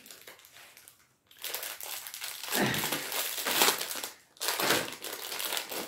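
Small clear plastic bag crinkling and rustling in the hands as it is opened to take out a chain necklace. The crinkling comes in several bursts after a quiet first second or so.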